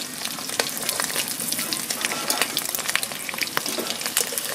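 Whole boiled eggs sizzling in hot oil in an aluminium kadhai, with frequent sharp clicks and scrapes of a metal spatula turning them in the pan.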